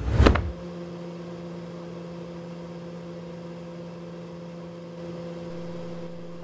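A brief whoosh, then a steady electric hum made of a few fixed low tones.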